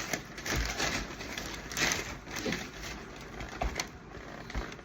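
Rustling and a few light clicks from toy figures and their packaging being handled.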